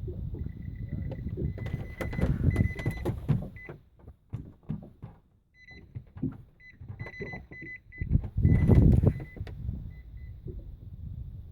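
Short, high electronic beeps repeating on and off over low rumbling noise and scattered knocks, with two louder surges of rumble.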